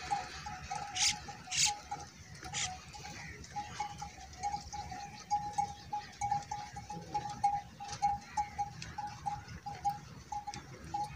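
A herd of dromedary camels moving past, with animal sounds and scattered clicks of feet on gravel. A steady, wavering high tone runs underneath, with a few sharp strikes early on.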